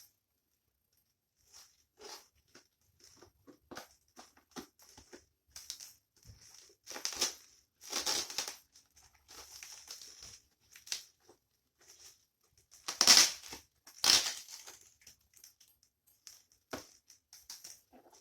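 Speaker packaging being forced open by hand: irregular crinkling, scraping and tearing of the wrapping and tape, with two louder rips about two-thirds of the way through. The packing is tight and hard to open.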